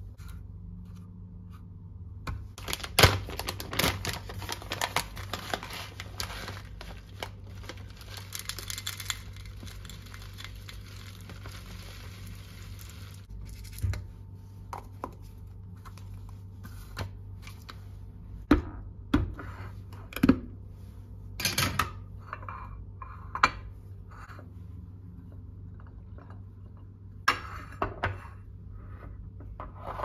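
Kitchen handling sounds on a granite countertop as yoghurt and muesli are set out in plastic containers. First several seconds of dense rustling and rattling, then a string of separate clicks and knocks as containers and lids are handled and set down, over a faint steady hum.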